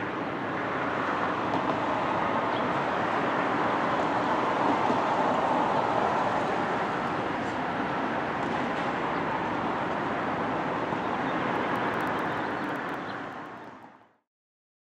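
Steady noise of a vehicle running, with no distinct tones or rhythm, fading out near the end.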